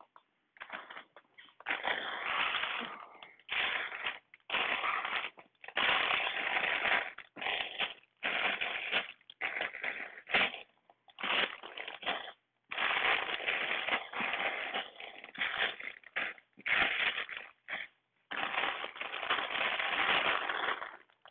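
Plastic bags of Lego pieces crinkling as they are handled and sorted, in irregular bursts of about a second each with short pauses between.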